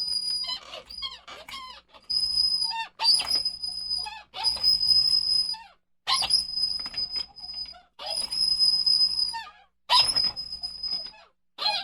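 Office swivel chair rocking back and forth and squeaking: each rock gives a held high squeak with shorter squeaks that glide up and down, in repeated spells about every one and a half to two seconds with brief pauses between.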